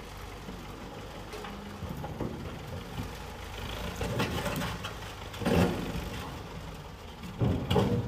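JCB 3CX backhoe loader's diesel engine running steadily as the machine works its front bucket into a pile of rocks, with three louder bursts about four, five and a half and seven and a half seconds in.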